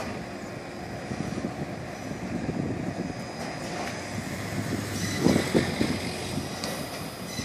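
Diesel locomotive of a passenger train running as it pulls away, with wind on the microphone. Two louder thumps come about five seconds in.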